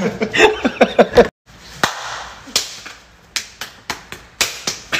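Laughter, then a brief dropout, then a series of about seven irregular sharp smacks spread over three seconds.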